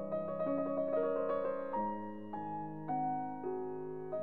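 Gentle piano music with held chords changing every half second or so, and a quick run of notes in the first second and a half.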